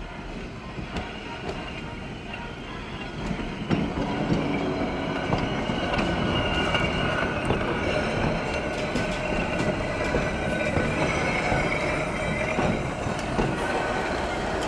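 TTC Peter Witt streetcar rolling past on steel rails. Its wheels click over the rail joints and squeal on the curving track, and the sound grows louder about four seconds in as the car draws alongside.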